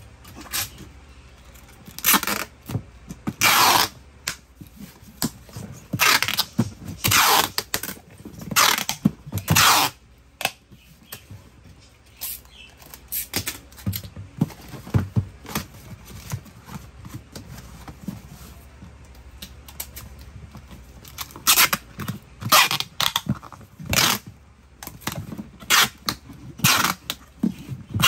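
A corrugated cardboard shipping box being handled: flaps folded and pressed down, with irregular scrapes, rustles and taps. Several longer noisy bursts come in clusters, and near the end packing tape is worked on the box.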